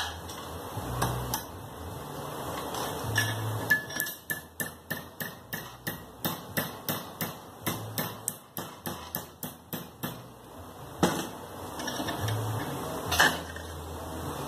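Hammer tapping a small metal part clamped in a bench vise to shape it: a quick run of light, even metallic taps, about three a second, lasting several seconds, then two harder separate blows near the end.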